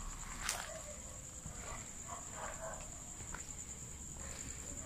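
Crickets trilling in one steady, high-pitched, slightly pulsing tone, with faint footsteps and a single sharp click about half a second in.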